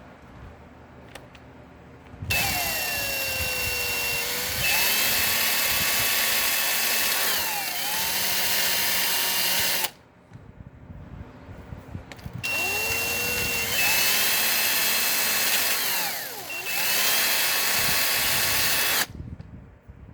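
Handheld power tool running in two long bursts with a pause between them. Each burst spins up about two seconds in or after the pause, dips briefly in speed partway through, then runs back up before it stops.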